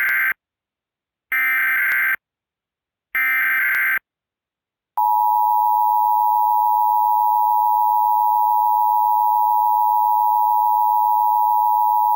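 Emergency Alert System SAME header: three short buzzing digital data bursts about a second apart. About five seconds in, the steady two-tone EAS attention signal (853 and 960 Hz) starts and holds.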